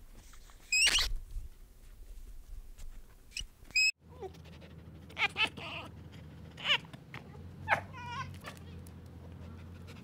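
A macaque's short, high squeal about a second in and two brief chirps; then, after a cut, a red fox's series of short high whining cries, one wavering near the end.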